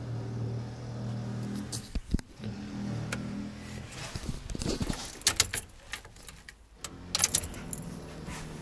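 Scattered clicks, taps and light rattles of hands handling cables and a laptop inside a car, over a low hum that drops out for a few seconds midway.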